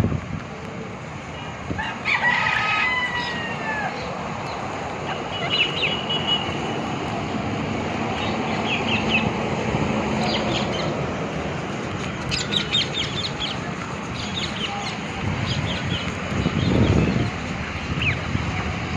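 Birds calling: one longer call with a sliding pitch about two seconds in, then short, sharp calls every few seconds over a steady background hiss. A low rumble swells and fades near the end.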